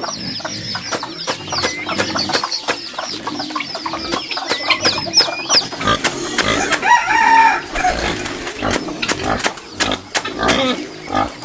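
Knife chopping leafy greens on a wooden block, a quick run of sharp knocks. High falling peeps from chicks run through the first half, and a rooster crows once about six and a half seconds in.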